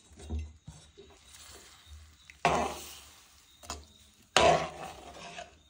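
A spoon stirring sambar in a kadhai, with two louder scrapes of the spoon against the pan about two seconds apart.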